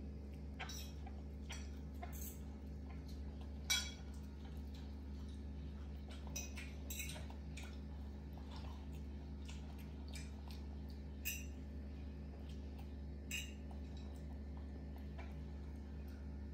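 Sparse light clinks of cutlery against a ceramic plate and a metal bowl while noodles are eaten, the clearest about four seconds in. A steady low hum runs underneath.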